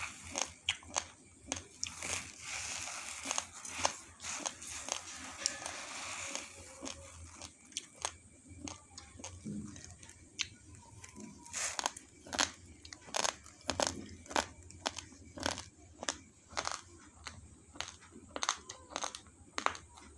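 Raw, uncooked basmati rice being crunched and chewed close to the microphone: sharp, irregular crackling crunches. A couple of seconds in there is a longer stretch of dry rustling of the grains.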